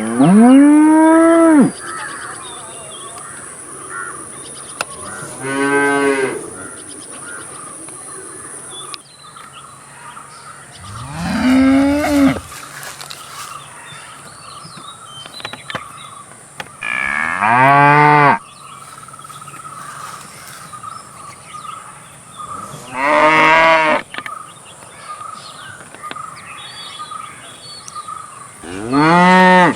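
A cow mooing six times, about every five to six seconds. Each moo is a drawn-out call of one to two seconds that rises and then falls in pitch.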